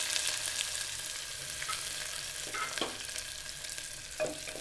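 Sliced onions sizzling in hot oil with mustard seeds in a pressure cooker, a steady frying hiss that eases slightly. A wooden spatula stirring scrapes and knocks against the pot a few times, the loudest knock about four seconds in.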